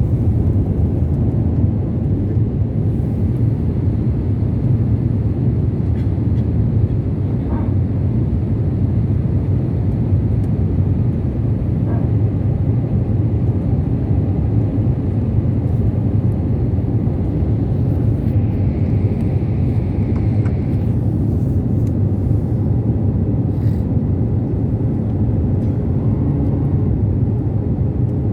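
Steady low rumble of an airliner's engines and airflow as heard inside the passenger cabin.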